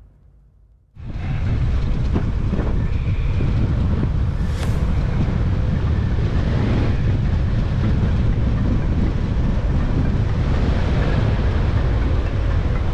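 Wind rushing over a bicycle-mounted action camera's microphone during a fast road descent, a steady rumbling noise that cuts in suddenly about a second in.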